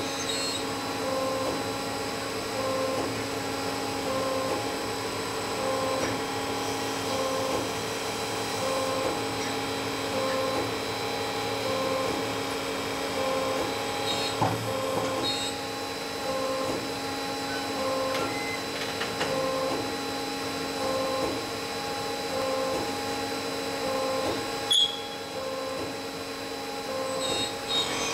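CNC multi-spindle automatic lathe running: a steady machine hum and whine with a soft pulse repeating about every second and a quarter. A sharp knock about halfway through and another near the end.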